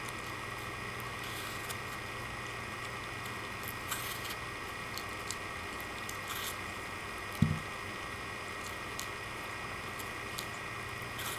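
Small terrier gnawing and biting at a Granny Smith apple: scattered small crunches and scrapes of teeth on the skin over a steady background hum, with one louder thump a little past halfway.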